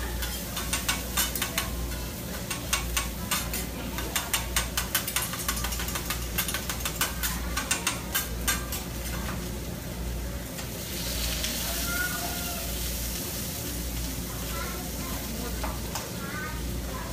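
Food sizzling on a hibachi griddle while metal utensils clack and scrape quickly against the flat-top for the first half, then a louder hissing sizzle for a couple of seconds about eleven seconds in.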